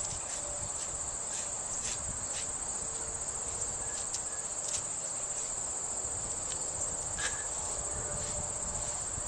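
A steady high-pitched insect trill, such as crickets, with a few faint clicks scattered through it.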